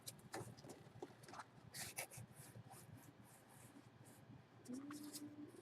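Faint, scattered rustling and crinkling of plastic packaging as a sealed jersey bag is opened and handled. A short low hum sounds near the end.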